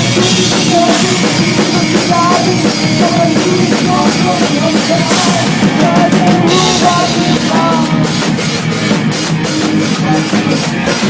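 Rock band playing with a drum kit, loud and steady, with short wavering melody notes over a dense backing.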